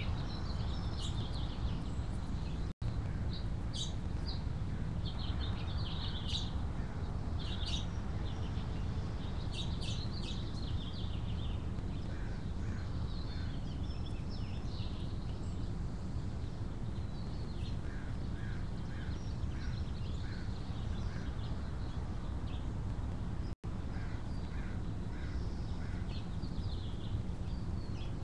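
Wild birds chirping and calling outdoors, with a run of repeated lower calls about twice a second in the middle, over a steady low rumble. The sound cuts out for an instant twice.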